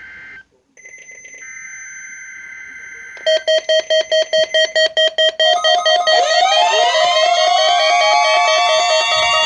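Electronic alert tones. A faint two-tone signal is followed, about three seconds in, by a rapid beeping about four times a second. After about six seconds this turns into a continuous warbling alarm tone with sliding tones sweeping over it.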